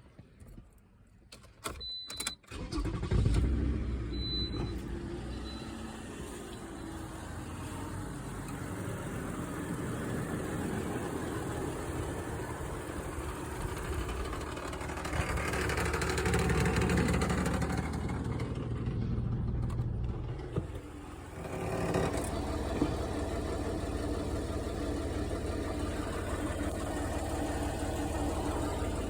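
2006 Toyota RAV4's 3.5-litre V6 is started about two seconds in with a brief flare, then runs, swelling and easing off in the middle. A two-tone high beep sounds just before and after it catches. Running through the engine is the rattle of the muffler heat shield, loose because its mounting studs have rusted out.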